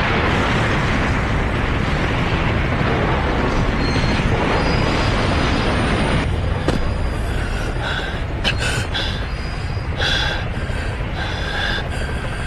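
Cartoon sound effect of a large explosion and collapse: a loud, continuous rumbling roar. From about six seconds in, sharp metal clanks and screeching are added, as of a heavy steel container grinding and falling through wreckage.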